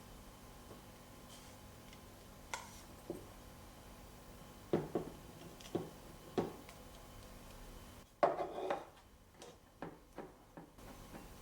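Dishes and utensils being handled, giving scattered short clinks and knocks, with a louder clatter of several knocks about eight seconds in.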